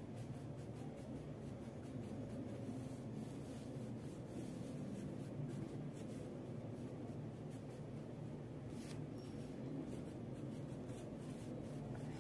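Wax crayon scratching and rubbing on paper in many short, repeated strokes as a picture is coloured in.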